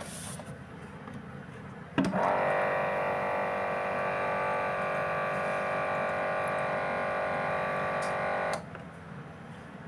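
A steady buzzing hum from a small machine, switched on with a click about two seconds in and cutting off abruptly about six and a half seconds later.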